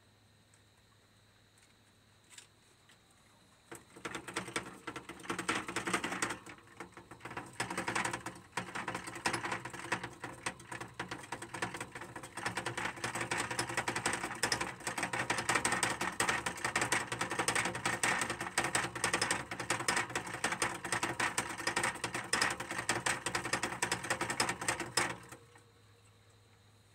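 Golden hamster running in a plastic exercise wheel, the wheel giving a fast rattling clatter with a hum under it. It starts in short spurts a few seconds in, then runs steadily and stops abruptly near the end.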